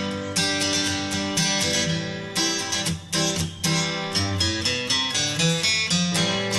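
Background music: acoustic guitar strumming chords in a regular rhythm.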